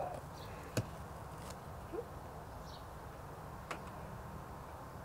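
Quiet background hiss with a few faint, sharp clicks, the clearest about a second in, and a few soft, short chirps.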